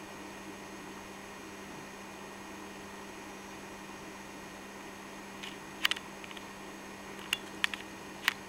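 Steady low hiss and hum, broken in the second half by several sharp clicks and taps, a few with a brief metallic ring.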